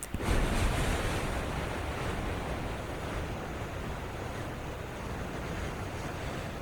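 A long, deep breath taken close to a binaural microphone: a breathy rush that starts suddenly just after a faint click, then slowly fades and is still going at the end.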